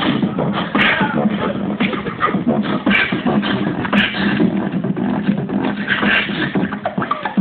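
Beatboxing: a person keeping a steady beat of sharp percussive hits made with the mouth.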